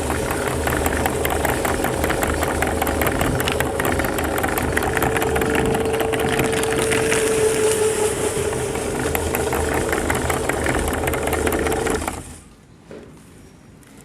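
Electric meat grinder running and crunching chocolate candy biscuits: a steady motor hum with dense crackling. The motor cuts off about twelve seconds in.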